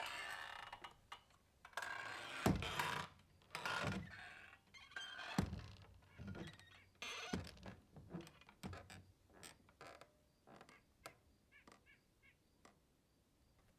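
Swinging saloon doors creaking on their hinges and knocking with low thuds as they swing back and forth. The swings grow smaller and fainter until the doors come to rest near the end.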